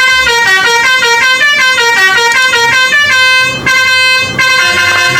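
Multi-tone 'telolet' bus horn playing a quick tune of short stepping notes, then, after a brief break, holding a long chord near the end.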